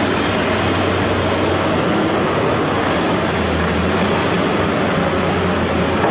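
A heavy engine running steadily: a constant low hum under a loud even hiss, with no change in speed.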